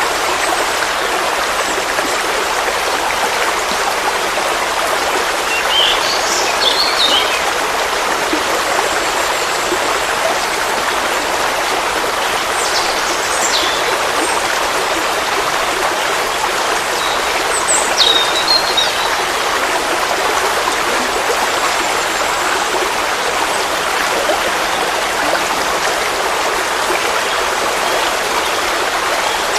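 Forest stream flowing steadily over stones, a constant rushing of water. A few brief high bird chirps come through it now and then.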